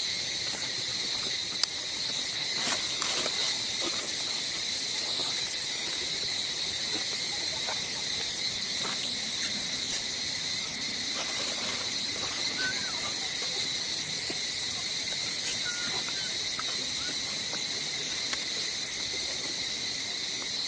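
Steady chorus of insects, a continuous shrill buzz, with a few faint clicks.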